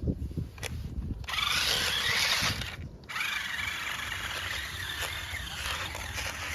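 Radio-controlled off-road car's motor and drivetrain whining, the pitch wavering up and down with the throttle; it cuts out briefly about three seconds in, then carries on. A few low knocks come first.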